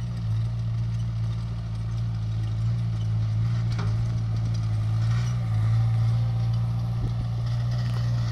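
A steady, low, unchanging engine hum.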